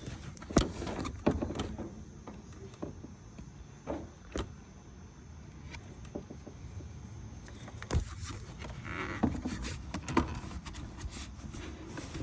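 Scattered clicks and light knocks of hands handling parts and tools, over a low steady rumble, with a few sharper knocks about a second in, near four seconds in and around eight seconds in.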